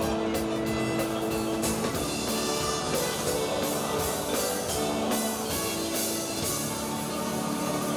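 Music with drums and held sustained notes, steady and full throughout.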